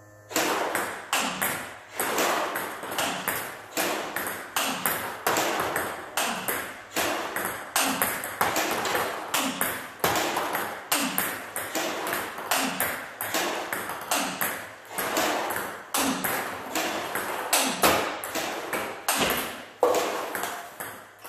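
Table tennis balls fed by a robot about once a second, each bouncing on the table and struck with forehand topspin loops off a Victas ZX-Gear blade with V15 Extra rubber. The result is a steady rhythm of sharp plastic ball clicks.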